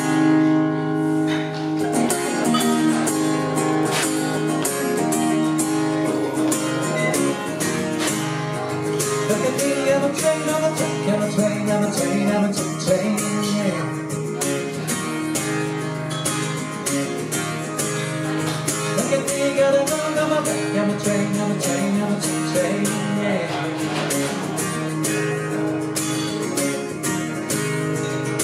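Live duo song: a steadily strummed guitar with a man singing.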